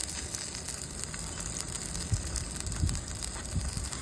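Fish sizzling and crackling in olive oil on a small portable propane grill, a steady hiss with many small pops, with a couple of low bumps about two and three seconds in.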